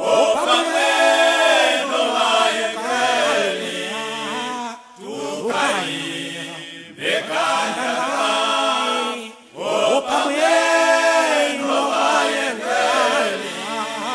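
Male voices singing a gospel song together in harmony, in sung phrases a few seconds long broken by brief pauses.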